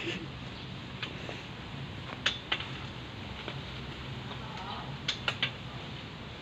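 Hanging bamboo swing on metal chains swaying, its chains and seat giving sharp, irregular clicks and creaks, with a little cluster of clicks near the end, over a steady low hum.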